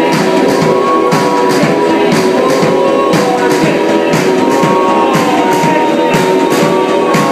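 Live rock band playing loud: a drum kit keeps a steady beat under electric guitar with long held notes.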